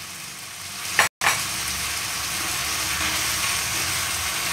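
Onions and green capsicum sizzling in oil in a non-stick pan, with soy, chilli and tomato sauces just poured in, and a slotted spatula stirring them near the end. The sound drops out for a moment about a second in, then the sizzling comes back louder.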